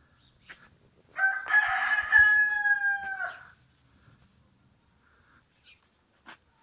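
A rooster crowing once, about a second in, for about two seconds: raspy at first, then a long held note that drops slightly at the end.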